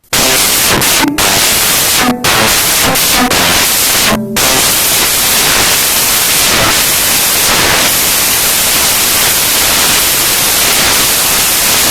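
Loud, steady hiss like static or white noise, starting abruptly after silence, with a few brief dropouts in the first four seconds.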